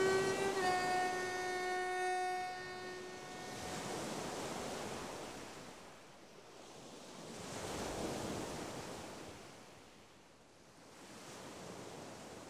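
A held note with many overtones fades out in the first three seconds. After it come slow swells of surf-like wave noise that rise and fall about every four seconds, growing fainter toward the end.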